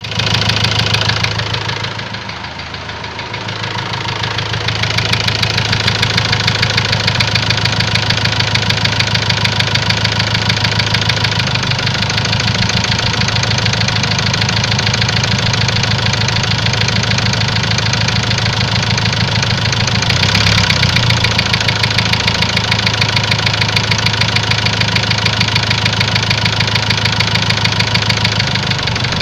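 Ford Transit engine idling with a rapid, steady knock, which the owner puts down to the first cylinder. The level dips briefly near the start and swells briefly about two-thirds of the way through.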